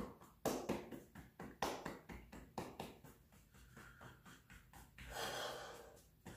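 Qigong body tapping: a hand patting the arms and shoulders through a cotton sleeve, an uneven run of soft taps, about two or three a second. A breath comes through about five seconds in.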